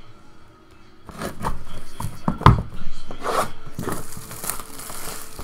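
Plastic shrink wrap being slit and torn off a cardboard trading-card hobby box, crinkling, starting about a second in, with one sharp snap about halfway through.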